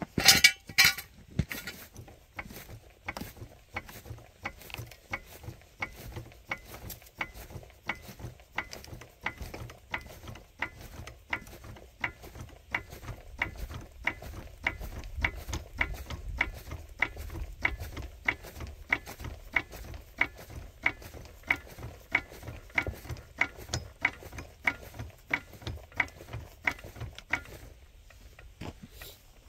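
A loud clatter of metal at the start, then a hand-worked ratcheting tool clicking steadily about twice a second, stopping shortly before the end.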